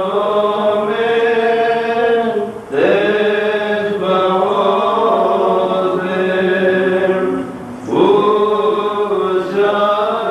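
Liturgical chanting of the Syriac Orthodox Holy Qurbana: sung phrases with long held notes, broken by brief pauses about two and a half seconds in and again near eight seconds.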